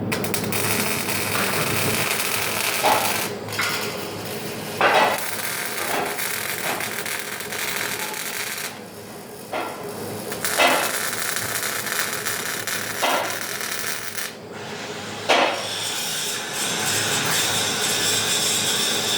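MIG welding arc crackling and hissing in runs that break off briefly a few times, with several sharp knocks of metal between.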